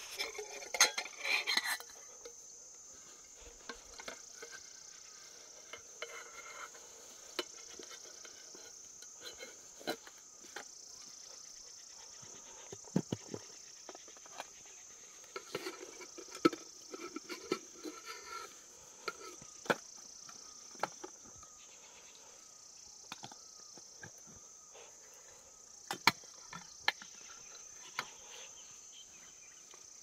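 Metal camping pots, lids and a kettle clinking and knocking in scattered short strikes as they are nested together and packed into a fabric stuff sack, over a steady high chirring of insects.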